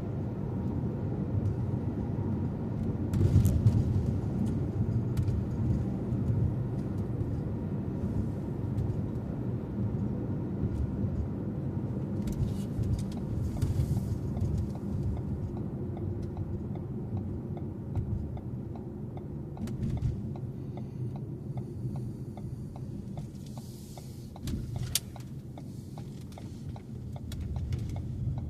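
Car driving on the road: a steady low rumble of tyres and engine, with a louder jolt about three seconds in and a run of light, even ticks in the second half.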